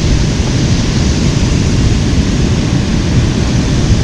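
Steady, loud rushing of a fast-flowing river.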